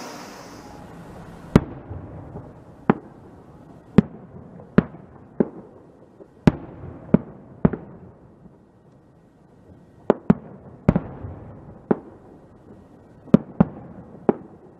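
Fireworks going off: about fifteen sharp bangs at irregular intervals, some in quick pairs, each followed by a short echo, with a lull in the middle.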